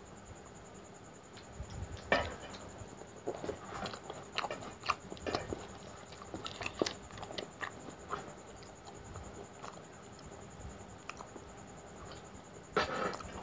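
Chewing and wet mouth smacks while eating soft luchi dipped in mutton curry by hand. Irregular clicks come thick for a few seconds and thin out in the middle, with a louder rustling burst near the end.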